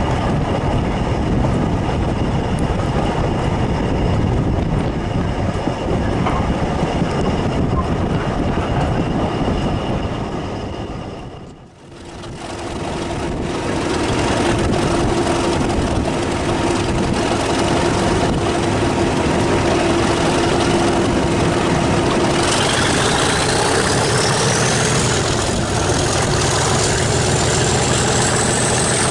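BR Class 37 diesel locomotive hauling a train, heard from an open carriage window. First comes the steady running noise of the coaches on the rails. After a brief fade about twelve seconds in, its English Electric V12 diesel engine is heard close by, a steady drone with a high whine that climbs in pitch about two-thirds of the way through.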